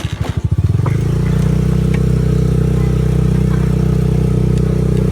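A vehicle engine running, uneven and pulsing for about the first second, then a steady low drone.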